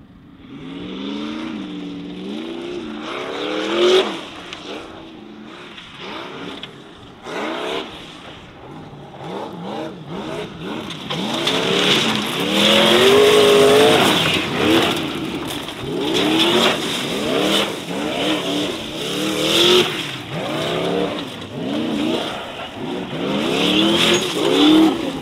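Formula offroad racing buggy's engine revving hard, its pitch rising and falling again and again as the throttle is worked, with tyres spinning in loose gravel and dirt.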